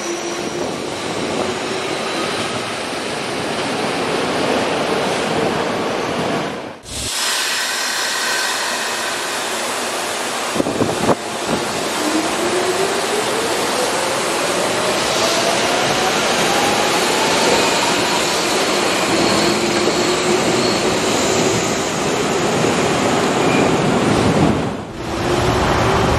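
A Hanshin 'Jet Car' commuter electric train running and accelerating, with a steady rush of wheel and rail noise. Midway, the traction motors' whine rises steadily in pitch for about six seconds as the train gathers speed. A sharp clack sounds a little before the whine begins.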